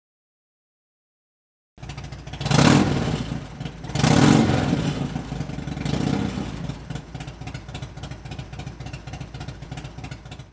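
Silence, then about two seconds in a Harley-Davidson's V-twin motorcycle engine cuts in, is revved twice with the throttle and blipped once more lightly, then settles to an even idle.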